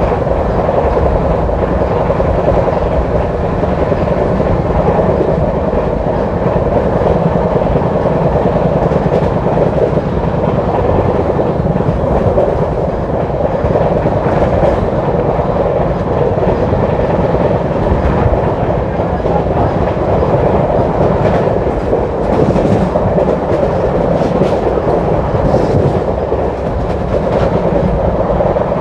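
Express passenger coach running at high speed, heard at its open door: a loud, steady rumble and rush of wheels on rails with clattering over the track, and sharper clacks now and then in the second half.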